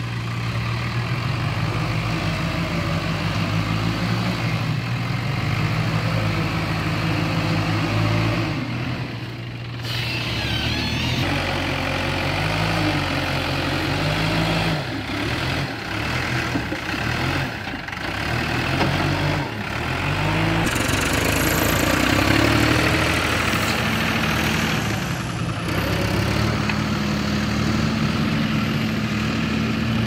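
Diesel engines of a Bobcat backhoe loader and a Mahindra DI tractor running close by, the engine speed rising and falling as the backhoe digs and loads soil into the trolley. Near the end one engine note holds steadier and slowly climbs as the loaded tractor-trolley pulls away.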